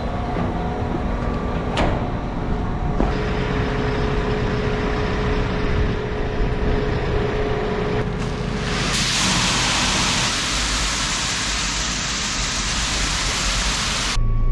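Tractor engine running steadily, heard in short clips that change abruptly. A loud, even hiss takes over for the last few seconds and then cuts off.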